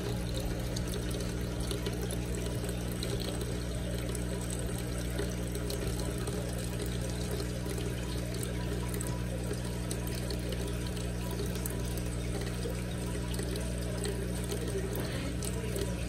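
Steady trickling water over a constant low hum from running aquarium equipment.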